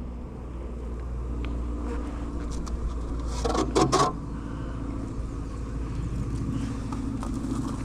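Agitated honey bees buzzing around the beekeeper over a steady low rumble. A short burst of knocks and rattles comes about three and a half seconds in.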